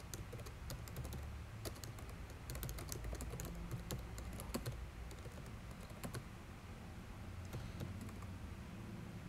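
Typing on a computer keyboard: a quick run of key clicks for the first few seconds, then sparser taps, over a low background hum.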